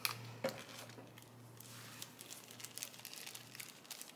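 Faint crinkling of plastic bags being handled, with a few light clicks.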